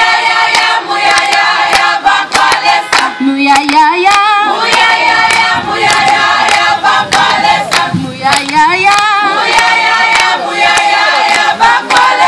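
A mixed choir singing in harmony, with the singers' hand claps keeping a steady beat.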